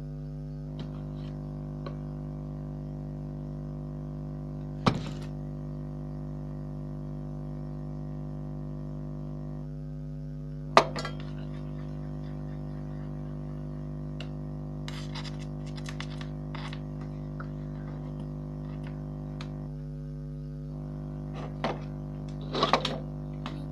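A steady droning hum on one held pitch, dropping out briefly about every ten seconds as though looping, with a few sharp knocks over it, the loudest about eleven seconds in and a cluster near the end.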